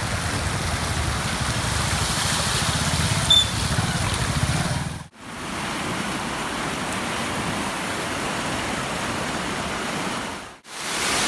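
Rushing floodwater pouring across a road, a steady heavy rush of water. The sound cuts out briefly twice, about five seconds in and near the end. A short high chirp sounds about three seconds in.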